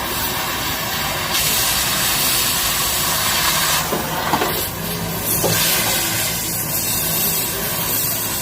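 Loud hissing in two long spells, with a few short knocks between them.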